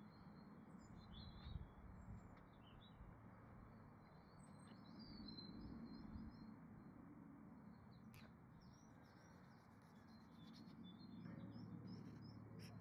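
Faint birdsong: small birds chirping and twittering in short repeated calls over a low steady background hum.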